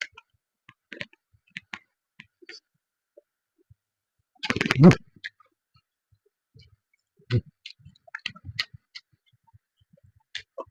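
Close-up mouth sounds of eating: scattered wet clicks and smacks of chewing, with one longer, louder burst a little before the middle.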